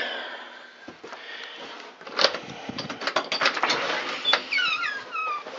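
A door being opened and handled: several sharp clicks and knocks, then a quick run of short, squeaky, falling squeaks near the end.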